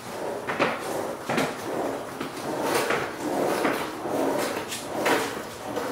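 Irregular knocks, clatters and scrapes of a person moving about and shifting a low rolling shop seat on a concrete floor, about a dozen sharp knocks over several seconds.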